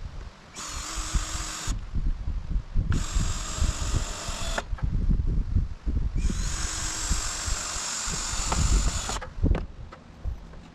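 Power drill running in three bursts, the last and longest about three seconds, as it drives fasteners into framing lumber. Wind buffets the microphone with a low, uneven rumble underneath.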